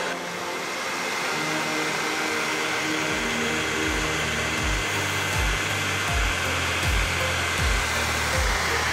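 Steady blowing hiss with a thin high whine, from the Anycubic Kobra 2 Pro 3D printer's cooling fan running during auto-level calibration. Background music with a steady bass beat joins about three seconds in.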